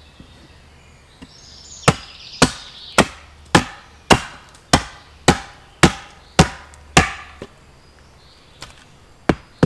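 Axe chopping wood against a moldy, rotting stump used as a chopping block: a steady run of about ten strokes, roughly two a second, then a pause and a couple more near the end.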